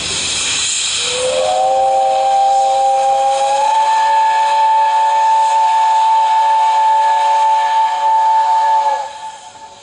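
Steam whistle of the Class 8620 steam locomotive No. 8630 blowing one long chord of several tones. It slides up in pitch as it opens about a second in, steps a little higher a few seconds later, and cuts off shortly before the end. Steam hisses loudly just before the whistle sounds.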